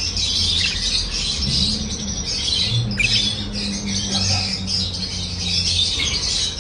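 A group of pet birds chirping and squawking all at once, a dense, unbroken chatter of many overlapping high calls.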